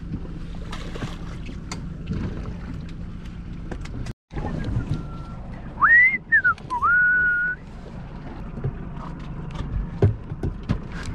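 A person whistling a few notes: a short note, a quick rise and fall, then one held note. Under it runs a steady low rumble with a few faint knocks.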